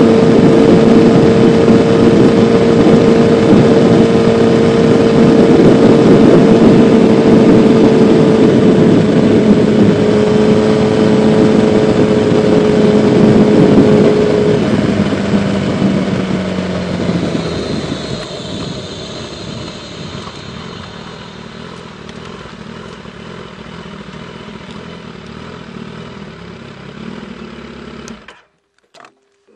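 2016 Kawasaki ZX-10R inline-four sport bike riding at speed with a steady engine note. From about halfway through, the bike slows and the sound falls away to a much quieter, steady run, then cuts off suddenly near the end.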